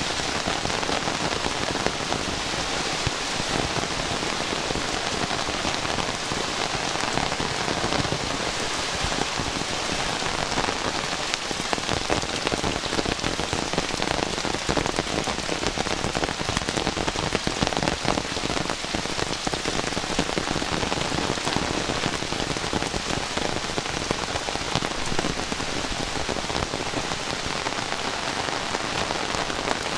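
Heavy rain falling steadily, a dense, even patter of countless drops hitting the ground and surfaces.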